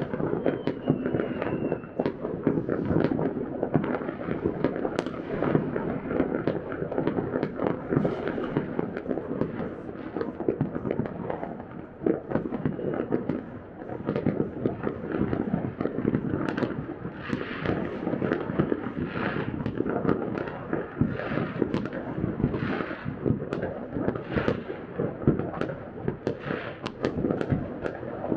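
Fireworks and firecrackers going off all across a city at once: a dense, unbroken din of bangs and crackling, with sharper bursts of crackle in the second half.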